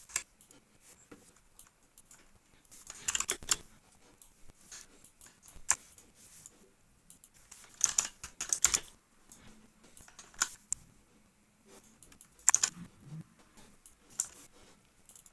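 Computer keyboard typing and mouse clicks in short, irregular clusters a few seconds apart, with quiet stretches between them.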